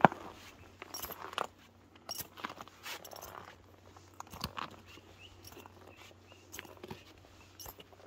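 Footsteps on snow: an uneven run of crunches and scuffs, the sharpest one right at the start.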